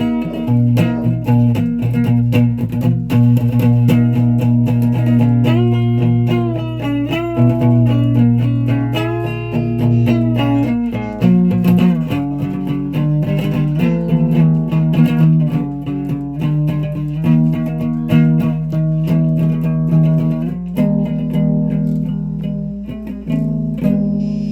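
A guitar played solo: a steady stream of plucked single notes and chords over ringing low notes, which die away near the end.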